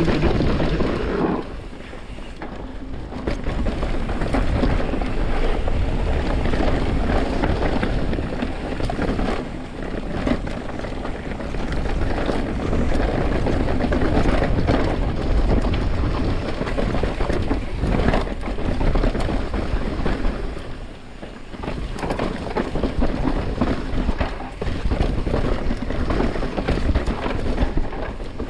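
Santa Cruz Nomad mountain bike descending a dirt trail: wind rushing over the microphone and tyres rumbling over dirt, with occasional knocks as the bike hits bumps. The noise eases briefly twice when the speed drops.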